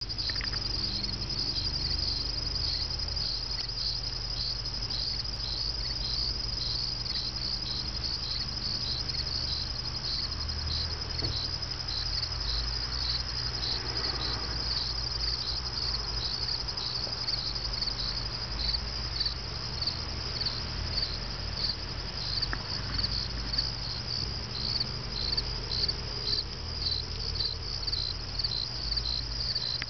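A chorus of insects chirping high and continuously, in an even repeating pulse that grows more distinct in the second half.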